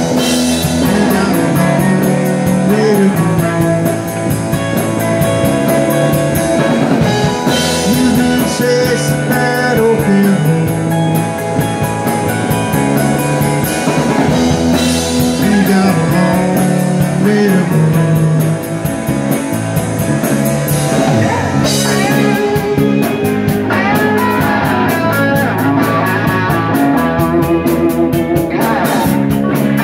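Live rock band playing: two electric guitars, electric bass and drum kit. In the second half the cymbals keep a fast, steady beat.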